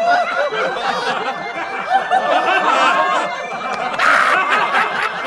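Audience laughter: many people laughing and chuckling at once, as a laugh track after a joke's punchline.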